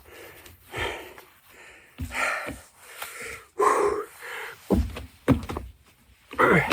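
A man breathing hard while doing burpees: several loud breaths, with a few low thuds of hands or feet landing about two thirds in.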